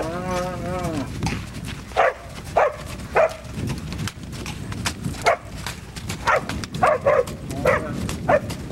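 A dog barking in short, sharp barks, about a dozen spread irregularly. It starts over the tail of a long, wavering animal call that fades about a second in.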